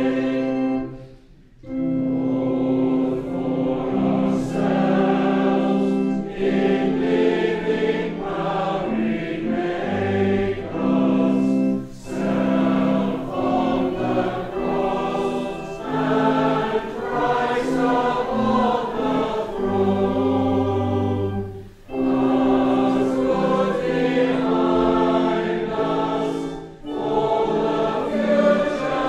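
Congregation singing a hymn together, with brief pauses between lines about a second and a half in and again near the end.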